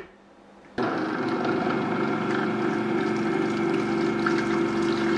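Vitamix Professional Series 500 blender switching on about a second in and running steadily on speed 1, its 2-peak-horsepower motor spinning the blade through half a container of water that swirls into a vortex.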